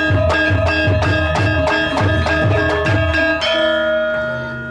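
Javanese Banyumasan gamelan playing a brisk gending: bronze metallophones and kettle gongs struck in an even fast pulse over kendang drum beats. About three and a half seconds in the playing stops and the struck bronze is left ringing as the piece closes.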